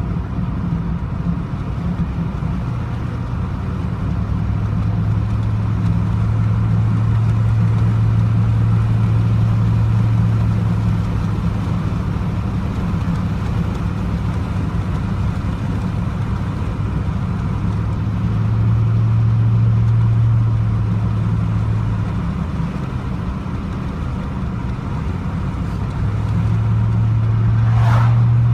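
A 2000 Z71 pickup's 5.3 V8 and drivetrain running with a steady low drone that swells and eases three times, as the truck is run with a damaged transmission that has lost reverse and third gear. A brief high chirp comes near the end.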